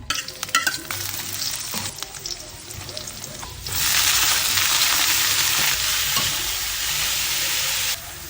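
Food frying and sizzling in hot oil in a pan, with a few utensil clicks early on. The sizzle gets much louder about three and a half seconds in and drops back just before the end.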